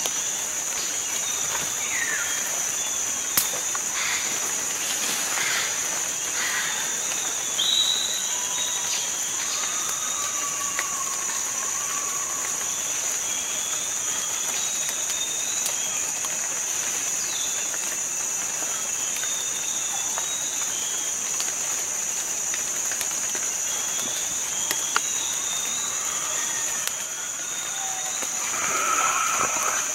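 Tropical rainforest ambience: a steady high-pitched insect drone, with scattered short bird chirps over it and a brief rustling swell near the end.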